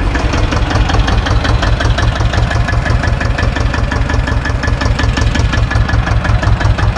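Small SAME tractor's diesel engine running steadily, with an even, rapid thudding beat.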